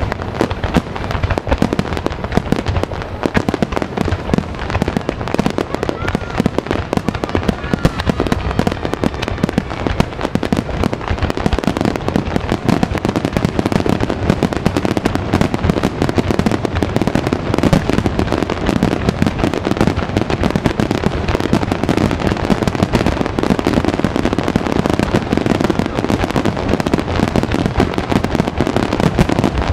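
Fireworks finale: a dense, unbroken barrage of shells bursting in rapid succession, with no pauses.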